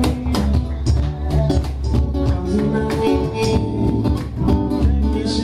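Live acoustic band music: guitars playing over a steady rhythm of sharp percussive hits from a cajón.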